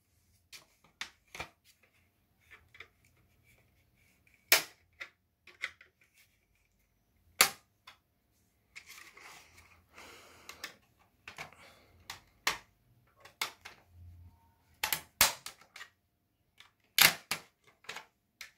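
Plastic snap-fit clips of a Huawei EchoLife HG8145V router's top cover popping loose as a flat-blade screwdriver pries the cover off: sharp plastic snaps at irregular intervals, two of them close together near the end, between smaller clicks and a few seconds of scraping in the middle.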